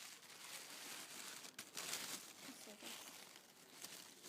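Packaging crinkling and rustling as it is handled, loudest about two seconds in.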